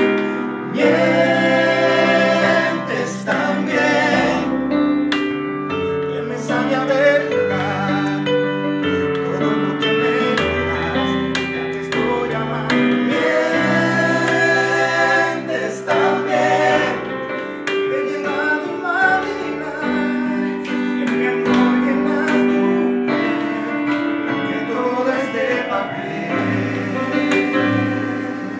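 Several voices singing a Cuban popular song together, with a digital piano playing the chords and a low bass line underneath.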